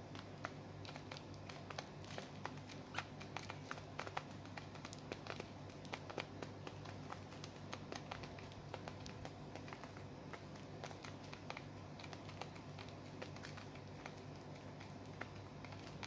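Gouldian finches, long-tailed finches and a diamond dove pecking and husking seed from a dish: a rapid, irregular patter of tiny beak clicks and seed-husk crackles, over a faint low hum.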